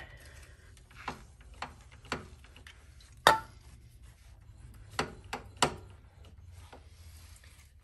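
Side stand of a Honda CBR500R being swung by hand on its freshly lubricated, sticking pivot, giving several light metal clicks and clacks. One louder, ringing metal clank comes about three seconds in.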